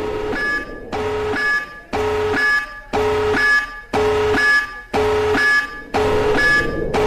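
Electronic emergency-alert alarm tone: a short high beep followed by a longer low tone, repeating about once a second.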